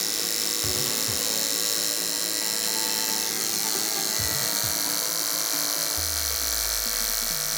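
Electric hair clipper running steadily with a freshly sharpened ceramic blade fitted, run to test the sharpening.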